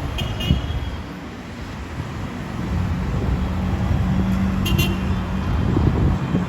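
Airbus A319 cabin noise: a steady low rumble of jet engines and airflow, with a hum that comes in about two and a half seconds in and fades out near the end. A few faint high clicks sound near the start and near the end.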